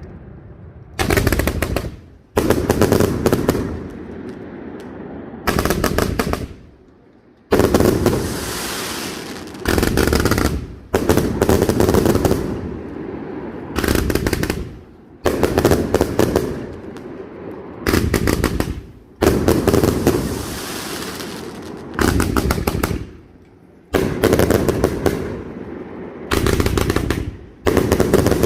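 Castillo fireworks display by Pirotecnia Nadal-Martí: salvo after salvo of rapid cracking bangs, one run every second or two, each run trailing off into a rolling echo.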